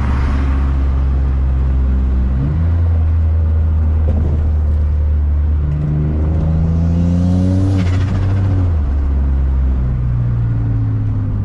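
Single-turbo Infiniti G35's 3.5-litre V6 running under way. The engine note steps in pitch about two and a half seconds in, climbs again from about six seconds, and drops near nine seconds, with a brief rush of air just before the drop.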